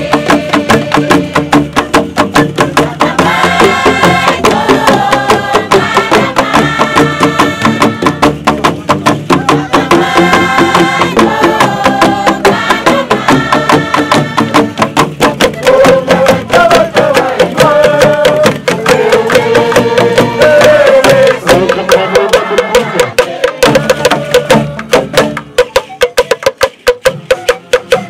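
Bamboo band: bundles of bamboo tubes struck on their open ends with beaters in a fast, steady beat, with group singing over it. Near the end the singing drops out and only the bamboo beat goes on.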